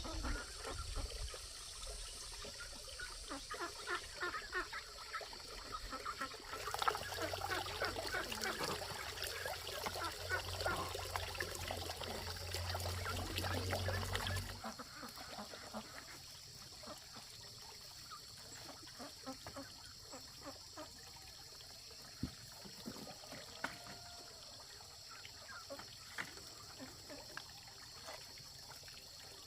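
Water trickling and splashing for about the first half, then dropping to faint, scattered small clicks and drips.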